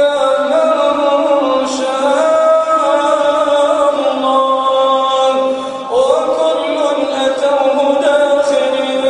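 A man reciting the Quran in a melodic chanted style, holding long notes that step and slide in pitch, with a clear upward slide about six seconds in.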